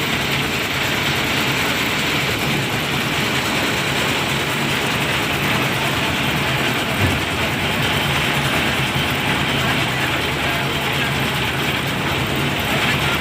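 Concrete mixer machine running steadily, with a continuous mechanical clatter over a low engine hum. There is one brief thump about seven seconds in.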